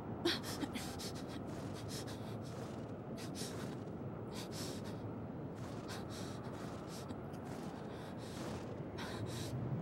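Blizzard wind blowing steadily, with a run of short, hissy sounds about every half second.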